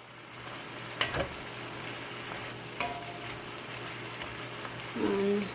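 String beans (sitaw) in soy sauce sizzling steadily in a pan while being stirred, with a metal utensil clinking against the pan about a second in and again about three seconds in.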